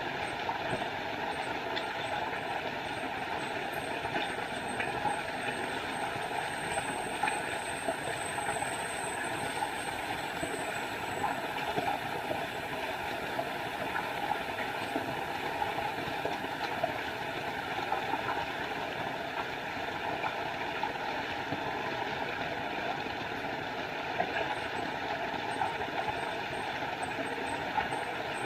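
Small forest waterfall: water falling and splashing in a steady, unbroken rush.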